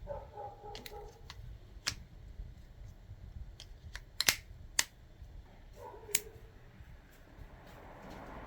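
A few sharp clicks, spaced a second or more apart with the loudest about four seconds in, plus two brief squeaks near the start and about six seconds in, over a low rumble.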